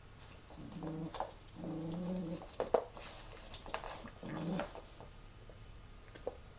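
Small puppy play-growling over a chew bone: three short low growls, each under a second, the middle one longest. A few sharp clicks come in between, the loudest sound of all.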